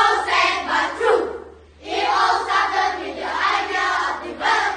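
A group of schoolchildren speaking a choral recitation in unison, loud chanted phrases with a short pause about a second and a half in.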